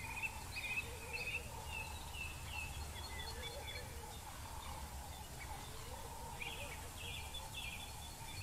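Wild birds chirping and calling in short repeated phrases, over a steady low rumble.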